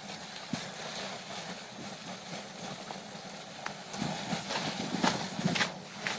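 Fire burning with a steady hiss and scattered sharp crackles and pops, more of them in the second half.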